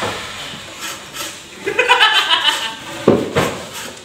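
Plywood furniture being handled and set down: rubbing and scraping, then two sharp wooden knocks a few tenths of a second apart about three seconds in.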